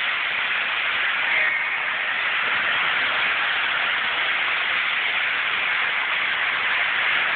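Model train running around its track, heard up close as a steady, even rushing hiss.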